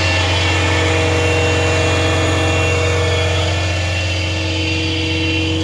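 2021 Peterbilt 337 rollback tow truck's diesel engine idling steadily: a constant low hum with a few fixed higher tones over it.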